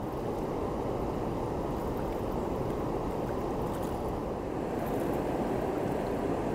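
Steady rush of water from a big river weir, a dense, even low noise that does not let up.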